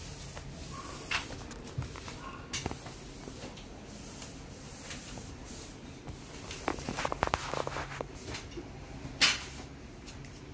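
Scattered knocks and rattles from a kitchen cabinet being handled, with a burst of quick clattering about seven seconds in and one sharp knock near the end, over a low steady hum.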